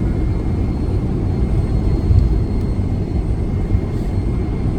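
Steady low rumble inside the cabin of a Boeing 757-200 with its engines running, heard from a passenger seat, with a faint steady whine above it.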